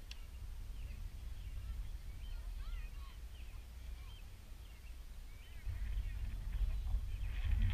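Wind rumbling on the microphone, growing stronger about six seconds in, over faint high chirping calls. A single sharp click comes right at the start.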